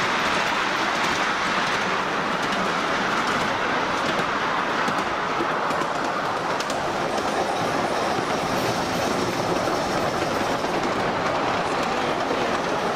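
Ride-on miniature steam train running steadily along its track, heard from a passenger car: a continuous rumble with the faint clatter of small wheels on the rails.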